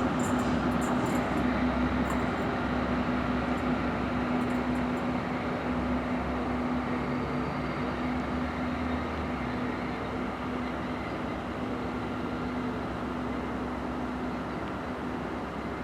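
A vehicle's engine drone with a constant steady hum, slowly fading away.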